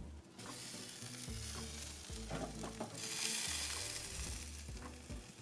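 Pork ribs sizzling on the grate of a hot charcoal smoker: fat and juices hissing steadily, growing louder about three seconds in.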